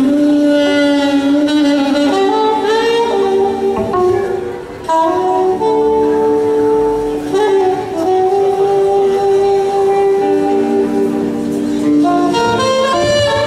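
Live band music led by a saxophone playing a slow, sliding melody of long held notes.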